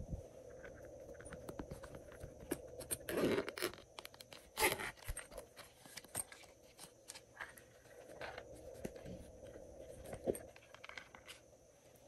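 A small zippered case being handled and opened by hand: scraping, crinkling and scattered clicks, with two louder rustling bursts about three and four and a half seconds in.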